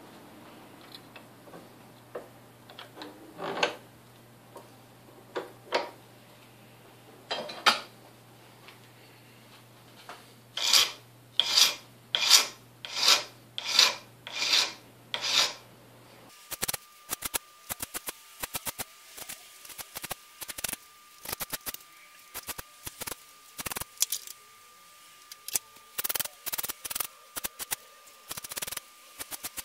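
A hand file rasping on a small metal bearing cover clamped in a bench vice. There are a few scattered strokes at first, then a run of about seven long, even strokes roughly two-thirds of a second apart. About halfway through, this gives way to many short, quick strokes and light clicks.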